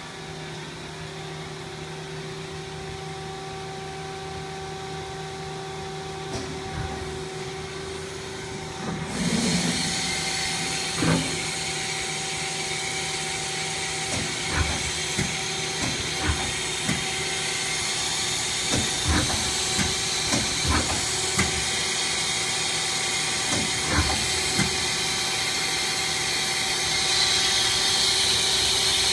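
Machine tool with an indexing turret and a live rotary tool running: a steady hum for about nine seconds, then a loud hiss sets in along with a string of sharp, irregular clunks.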